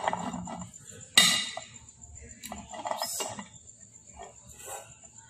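Stainless steel cooking pot being handled: one sharp metallic clank about a second in, the loudest sound, followed by a few lighter knocks and clinks.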